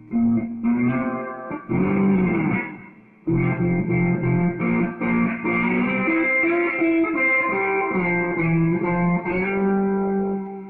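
Fender Stratocaster electric guitar played with a slide through a Fender Hot Rod amp: an improvised lead line of held notes, with a glide up and back down about two seconds in, a short break near three seconds, and a long held note that dies away near the end.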